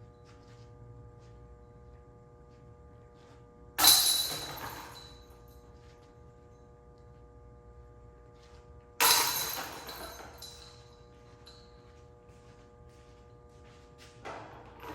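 Disc golf putts hitting a basket's metal chains, each a sharp strike followed by a jangling rattle that dies away over about a second. There are two putts about five seconds apart, and a third starts near the end. A steady hum sounds underneath and stops just before the last putt.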